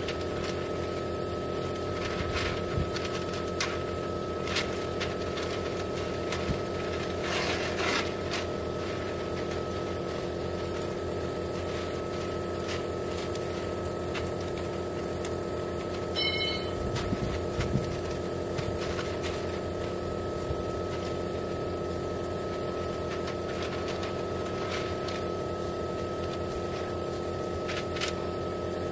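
Steady mechanical hum with a constant high whine, with scattered crinkles and rustles of masking paper and tape being handled as it is laid over a pickup tailgate.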